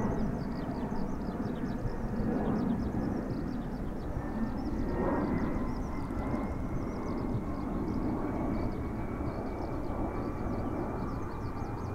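Boeing 767-300ER jet airliner's twin turbofan engines heard from below as it passes overhead in a banking turn. The engines make a steady, broad rumble with a faint thin whine on top that rises slightly in pitch about eight seconds in.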